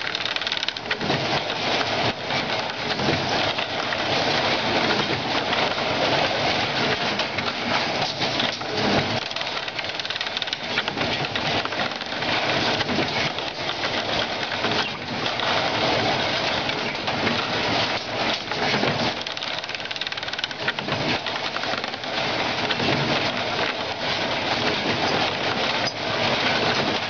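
Automatic cutting-and-bending machine running, a steady dense clatter of rapid clicks and rattles.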